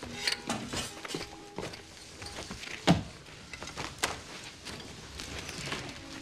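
Boot footsteps and scuffs on a floor, with a single heavy knock about three seconds in.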